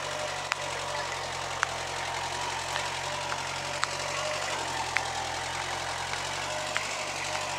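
Mini tractor's engine running steadily as it tows a trailer loaded with bricks. Sharp clicks come about once a second over the steady running.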